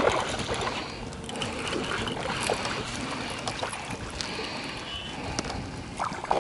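Wind on the microphone and water lapping against the boat's hull, with scattered light clicks and knocks.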